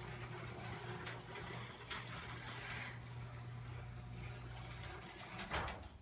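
Chamberlain half-horsepower chain-drive garage door opener running as it closes the door: a steady motor hum with a few clicks. A knock comes about five and a half seconds in, as the door comes down, and then the motor stops.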